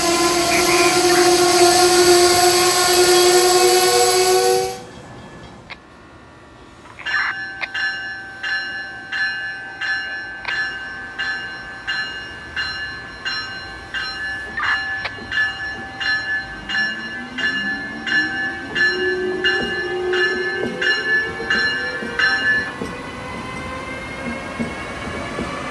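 Amtrak Siemens ACS-64 electric locomotive arriving, its bell ringing about twice a second for some fifteen seconds over the train's rumble, with a rising motor whine as it draws past near the end. Before that, a loud rush of a departing train with a steady chord of tones cuts off about five seconds in.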